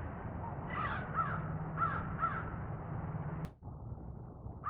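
Crow giving its unusual call, which the listener calls a pretty sound, in pairs: two calls about a second in, then two more about a second later. A steady low hum runs underneath, and a sharp click about three and a half seconds in cuts the sound out briefly.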